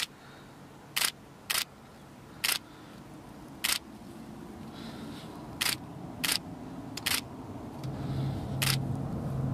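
Rapid camera shutter clicks, about ten at uneven intervals, over the drone of a Lockheed Martin C-130J Super Hercules's four turboprop engines coming in to land. The engine drone grows steadily louder and is loudest near the end as the aircraft reaches the runway.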